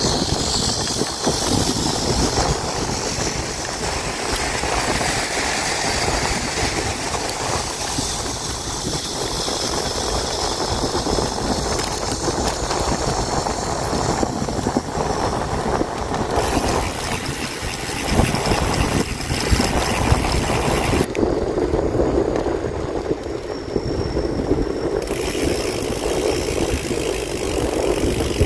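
Steady rushing noise of riding a bicycle: wind on the microphone and tyres rolling on the path.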